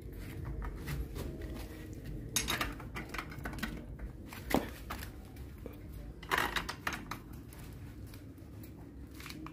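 Metal wrench clinking and scraping against a bicycle's rear axle nut and frame: three sharp clinks a couple of seconds apart, with quieter scraping between.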